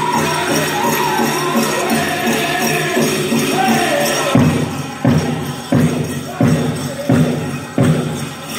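Powwow drum and singers: a steady drumbeat under high sung lines, with the jingle of dancers' bells. About halfway through, the singing drops back and the drum plays hard, separate beats about every 0.7 seconds.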